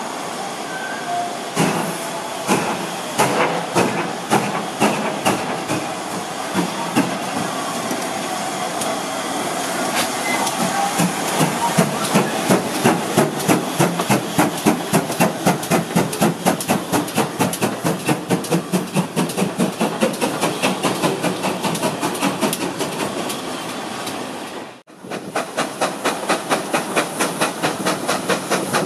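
GWR 2884 class 2-8-0 steam locomotive No. 3802 pulling away with exhaust chuffs: slow, separate beats at first, quickening as it gets under way. After a sudden cut near the end, a fast, steady rhythmic beat is heard from the moving train.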